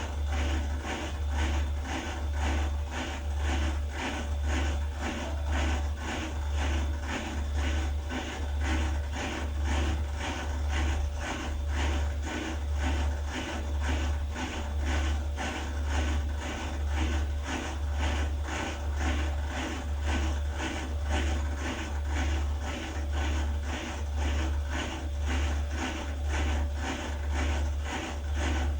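Beko WDX8543130W washer-dryer running, with a low hum that swells and fades about once every second and a bit, and a fast, regular rattle over it: the unusual noise the owner is recording from a machine that fails to dry the laundry.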